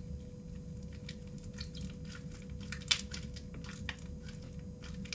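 Hands kneading sticky crunchy slime full of beads: wet squishing with irregular small crackling clicks as the beads pop in the slime, one sharper click about three seconds in.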